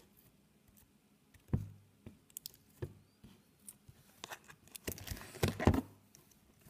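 Handling of slime: scattered soft clicks and squishes, with a soft knock about a second and a half in and a denser run of squishing near the end.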